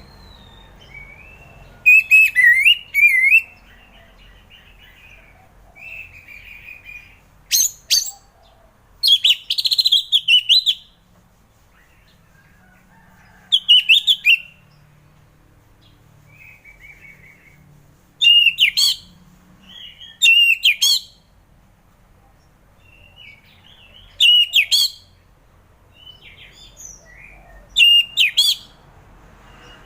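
Orange-headed thrush singing freely: loud, rapidly warbling whistled phrases about a second long every few seconds, with softer, quieter notes between them.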